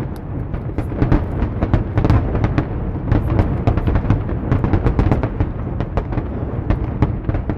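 Fireworks display going off in a dense, continuous barrage: many sharp bangs and crackles a second over a steady low rumble of booms.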